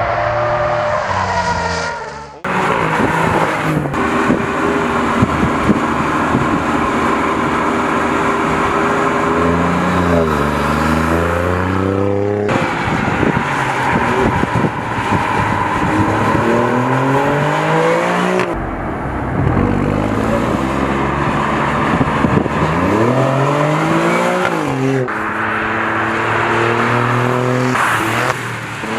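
Alfa Romeo Quadrifoglio's 2.9-litre twin-turbo V6 running hard on track, held at high revs through long pulls. Several times the pitch drops and then climbs again, as when braking and downshifting into a corner and accelerating out. The sound cuts abruptly a few times between shots.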